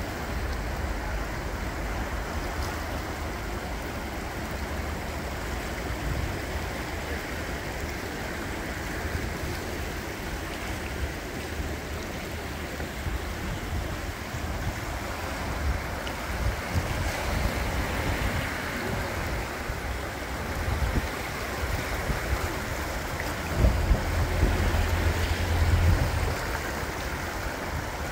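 Floodwater of the swollen River Wye rushing past the stone piers of a bridge: a steady rush of fast-moving water. Wind buffets the microphone in low gusts, strongest for a couple of seconds near the end.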